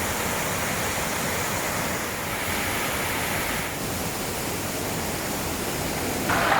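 Steady hiss of falling rain and running water, without any distinct drops or splashes standing out; it gets louder just before the end.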